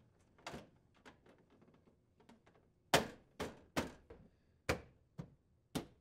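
A KitchenAid refrigerator's plastic upper cover panel being pressed up and snapped into its housing. There are a few faint taps, then about six sharp clicks and knocks in the second half, one every half second or so.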